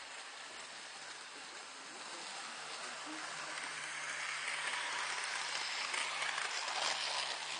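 Toy train running on its track, its motor whirring and wheels rattling, growing louder toward the last couple of seconds as it comes round the loop, over a faint low steady hum.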